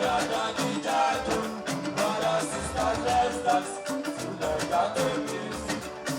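Band music playing: a singer over a steady drum beat with guitar and other instruments.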